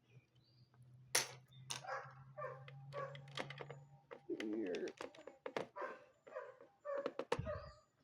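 Plastic Lego pieces clicking and knocking as they are handled and fitted together, in a series of sharp irregular clicks. A short wavering whine-like sound comes about halfway, and a low hum stops around the same time.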